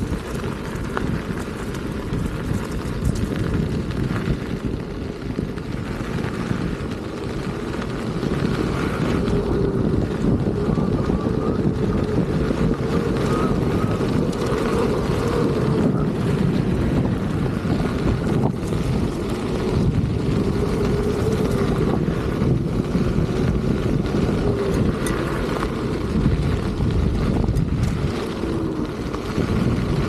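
Wind rushing over the microphone while riding a Begode Master electric unicycle, with the faint whine of its hub motor rising and falling in pitch as speed changes.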